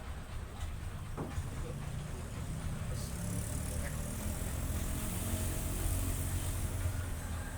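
An engine running steadily with a low drone that swells a little toward the middle, and a faint hiss coming in about three seconds in.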